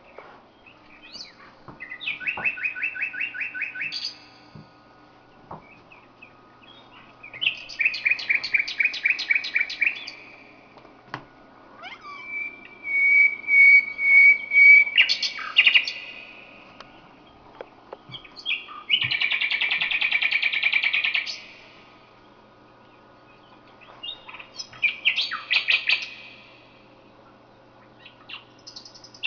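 Nightingale singing: separate phrases of fast repeated notes a few seconds apart, with one long, pure, level whistle about twelve seconds in.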